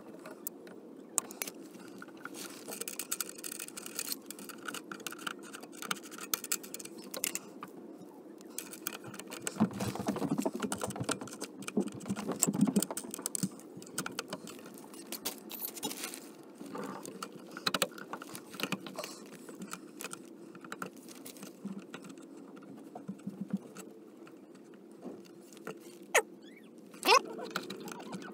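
Scattered small clicks, scrapes and rustles of hands working a wire-stripping tool on old electrical cable and fitting the wires into a metal junction box, with a louder bout of handling about ten to thirteen seconds in.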